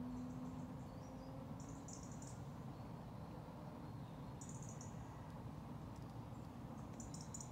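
Faint lakeside ambience: a steady low rumble with short bursts of high, thin chirping about three times, and a faint low hum that fades away over the first two seconds.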